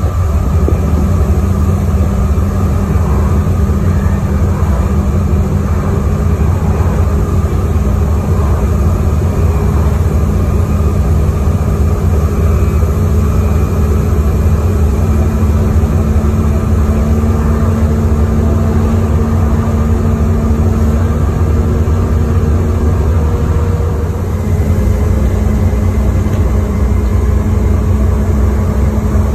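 Interior sound of a moving bus, First Wessex 32329: a steady diesel engine drone with road and body noise, dipping briefly about 24 seconds in.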